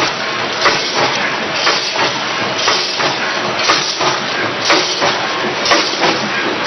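Automatic grain packing machine running: a steady mechanical hiss with a louder burst about once a second as its cycle repeats.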